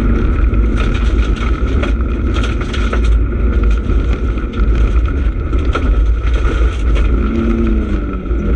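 Rally car driven hard on a dirt and gravel stage, heard from inside the cabin: engine running under load over heavy road and tyre rumble, with frequent sharp clicks of stones and bumps hitting the car. Near the end the revs dip and then climb again.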